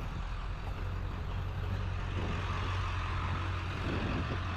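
A vehicle engine running steadily at idle, a low even hum.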